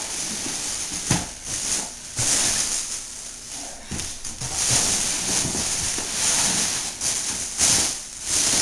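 Plastic packaging rustling as toy domino-set pieces are handled and unpacked, in several bursts of crinkling with a few light knocks.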